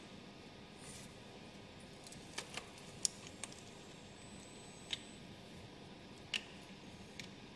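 About seven light, sharp clicks and taps at irregular intervals, the loudest about three seconds in, from hands handling the parts and fittings while a coolant temperature sensor is changed in a car's engine bay.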